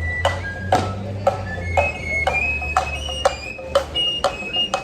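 Voladores flute and small drum: a high piping melody over drum strokes about twice a second, the melody climbing higher about halfway through.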